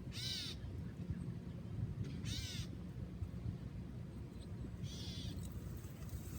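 A bird calling three times, each a short harsh call about two and a half seconds apart, over a steady low rumble.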